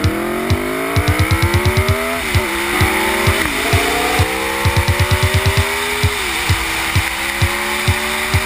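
V4 sportbike engine accelerating hard, its pitch climbing through the revs and dropping briefly at each of several upshifts. Music with a steady drum beat plays along with it.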